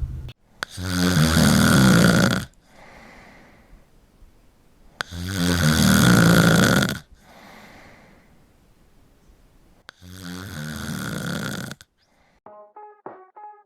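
A person snoring: three loud, low, pulsing snores about five seconds apart, each lasting about two seconds, with soft breaths between. Near the end the snoring stops and a few plucked notes of music begin.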